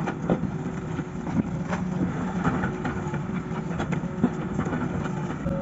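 Excavator engine running steadily, with scattered knocks and clanks.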